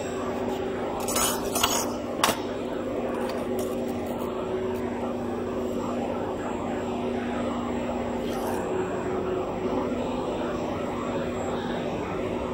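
Steady hum of a running fiber laser welding machine and its water chiller, with a few light metallic clicks about one to two seconds in as metal pieces are set down on the steel worktable.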